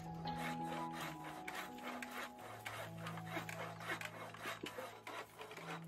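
Wooden frame saw cutting through a log, its blade rasping back and forth in a steady rhythm of about three strokes a second.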